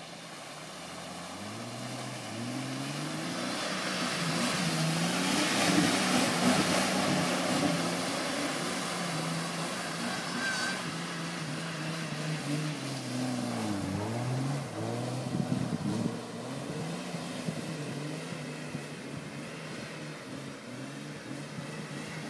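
Jeep Cherokee XJ engine revving up and down as it drives through mud and standing water, with splashing. The engine is loudest about five seconds in, then drops and climbs again about fourteen seconds in.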